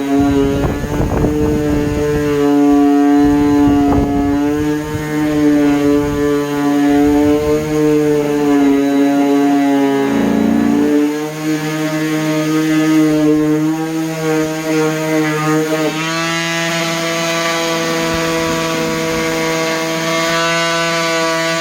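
DeWalt palm orbital sander running at a raised speed setting, sanding cedar with an abrasive disc: a steady motor hum whose pitch sags and recovers as the pressure changes, with scratchy sanding noise in the first few seconds. About two-thirds of the way through it settles into a steadier, slightly higher tone.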